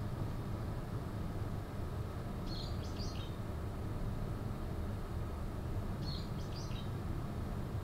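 A small bird calling a short high phrase of a few quick chirps, twice, about three and a half seconds apart, over a steady low background rumble.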